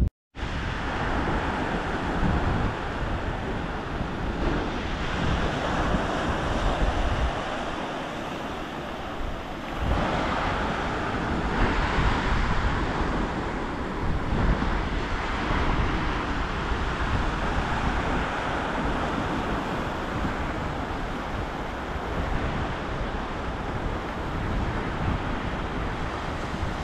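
Strong wind rushing and buffeting the microphone in uneven gusts, easing briefly about eight seconds in.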